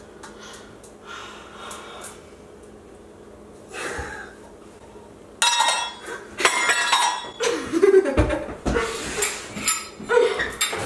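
Pots, pans and kitchenware clattering and clinking as someone rummages through a kitchen cabinet, starting about halfway through with many overlapping knocks and rings.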